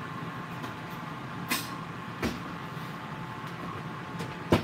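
GoWISE air fryer running with its fan humming steadily while it cooks fries. A couple of light kitchen clicks come in the middle, and a sharp knock near the end as a wooden kitchen cupboard door is opened.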